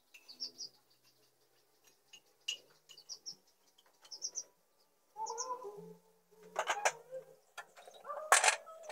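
Ceramic mugs and dishes clinking and knocking together as they are washed by hand, with the loudest knocks near the end. Short high chirps come and go between them.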